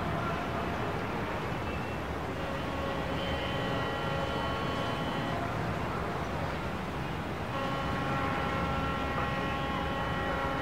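City street traffic below a balcony: a steady low rumble. Twice, for a few seconds each, a held whine of several tones rises above it.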